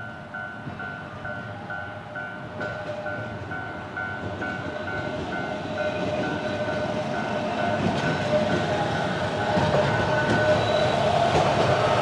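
Level-crossing warning bell dinging about three times a second as a Sangi Railway Hokusei Line 762 mm narrow-gauge train approaches. The train's rumble grows steadily louder and takes over near the end as it reaches the crossing.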